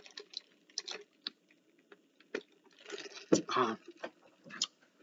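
A man sipping a drink through a plastic straw, with small mouth clicks and swallows. About three and a half seconds in comes a louder breathy exhale with a brief voiced sound.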